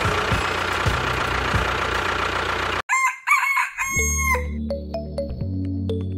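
A motor runs with a steady, noisy sound, and it cuts off abruptly about three seconds in. A rooster crows right after, and then music with chiming notes begins.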